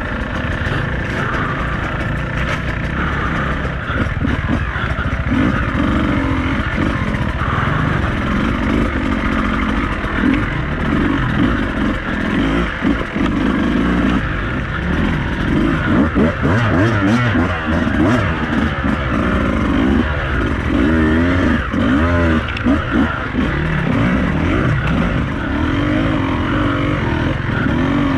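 Beta 200RR two-stroke enduro motorcycle being ridden on a trail, its engine revving up and down again and again as the throttle is worked.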